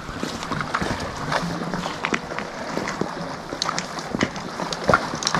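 Flowing stream water running steadily, with scattered clicks and knocks throughout.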